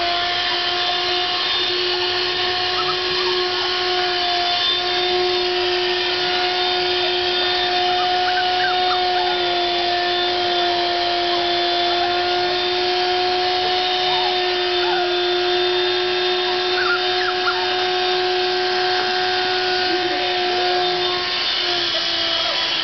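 Vacuum cleaner running steadily, with a constant hum.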